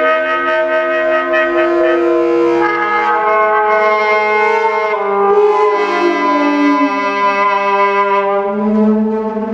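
Free-improvised saxophone and percussion: the saxophone holds long sustained tones, overlapping with other drawn-out pitched tones from the percussionist bent over the snare drum. About halfway through, some of the tones slide in pitch.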